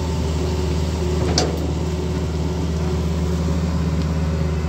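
Tata Hitachi Zaxis 220 LC excavator's diesel engine running steadily under working load while the machine digs and lifts a bucket of soil. A single brief sharp noise comes about a second and a half in.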